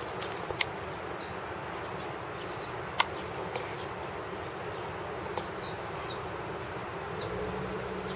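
Steady outdoor background hiss with a few short, high chirps scattered through it. Two sharp clicks stand out, about half a second and three seconds in, the second the louder.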